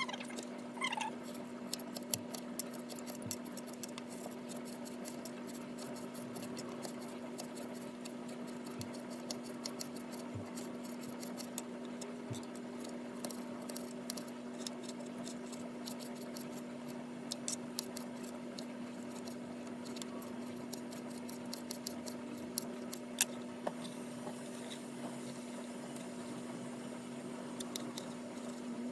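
Knife cutting partly frozen chicken thighs on a cutting board: scattered light clicks and taps over a steady low hum.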